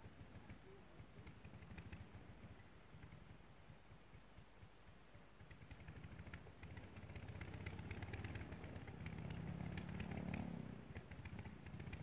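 Engine of a Demoiselle monoplane running and turning its propeller with a rapid, even firing beat. It picks up and grows louder from about six and a half seconds in, is loudest around ten seconds, then eases off slightly.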